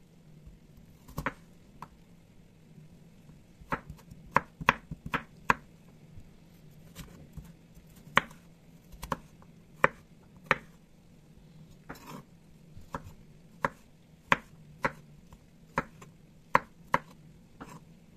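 A chef's knife chopping raw potatoes on a wooden cutting board: sharp, irregular knocks as the blade goes through the potato and strikes the board, some coming in quick runs of four or five.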